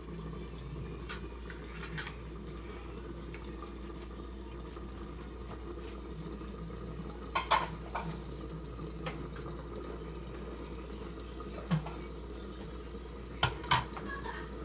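Covered pan of chicken stew simmering steadily, its metal lid clinking a few times: two quick clinks about halfway, a single one later, and two more near the end.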